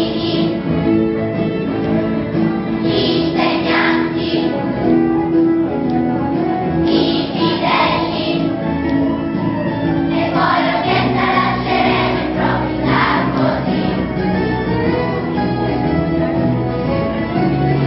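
A choir of schoolchildren singing a song together.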